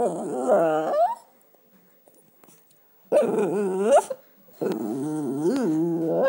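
Small long-haired dog moaning in three drawn-out, pitched vocalisations. The first ends on a rising note about a second in, a shorter rising one follows after a pause of about two seconds, and a longer one wavers up and down near the end.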